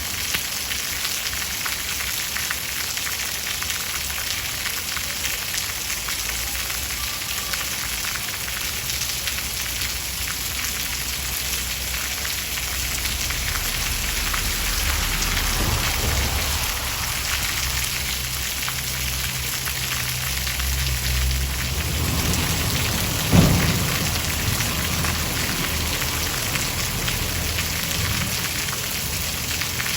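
Steady rain falling, with a low rumble of thunder building in the middle and a sharp thunderclap about three-quarters of the way through.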